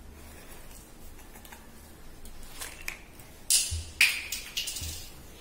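Paper crinkling as cut paper flower pieces are handled and pressed together for gluing, with a few soft thumps of hands on the table. It is mostly quiet at first, and the short crinkles come in the second half.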